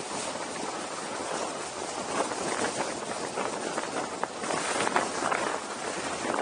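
Wind noise buffeting the microphone at descending speed: a rushing noise that swells and eases in gusts, with no engine note.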